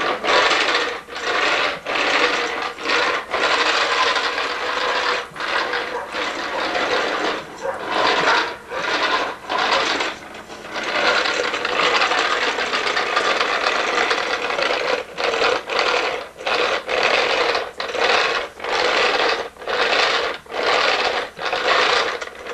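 Pink plastic toy push vacuum rattling and whirring as it is pushed across concrete, in stop-start bursts about a second apart with short gaps between pushes.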